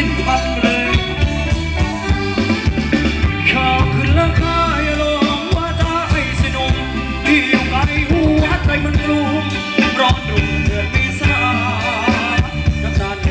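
Live band playing Thai ramwong dance music, with a steady beat and a voice singing over it.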